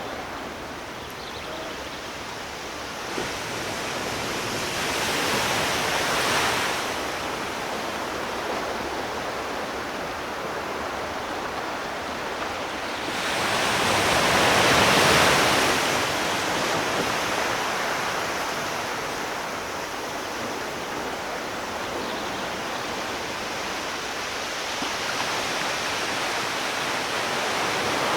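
Sea waves washing ashore: a steady hiss of surf that swells twice, gently about five seconds in and more strongly around the middle.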